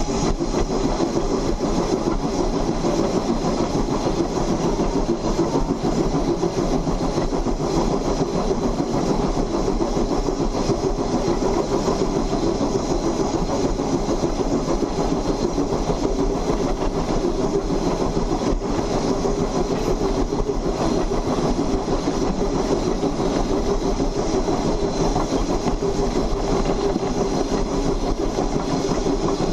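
2-8-2 saddle tank steam locomotive under way, heard close beside its driving wheels: a steady, loud mechanical din of the running gear and wheels on the rail.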